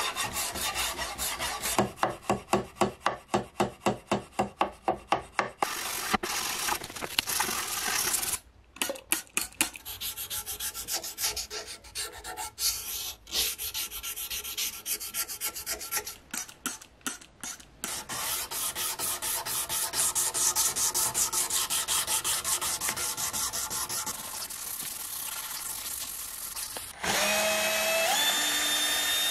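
Hand sanding of a US Model 1917 bayonet's steel blade and crossguard with an abrasive block and pad: quick back-and-forth rubbing strokes, about three or four a second at first, then more irregular scraping. Near the end a cordless drill runs with a whine that rises in pitch as it drives a screw at the guard.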